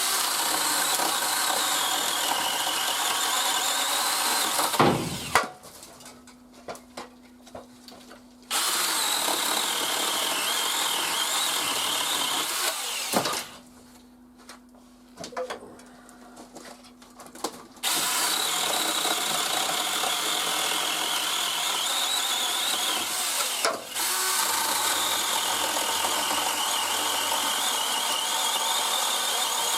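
Seesii PS600 electric pole saw running in three long runs with short pauses between, its pitch sagging and recovering as it cuts through branches.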